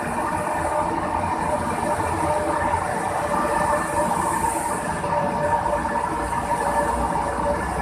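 Four-car MRT-3 CKD Tatra light rail train running past along a station platform: a steady rumble of wheels on rail with a constant whine over it.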